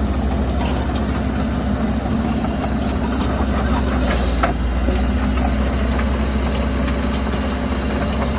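Komatsu PC130 hydraulic excavator's four-cylinder diesel engine idling steadily.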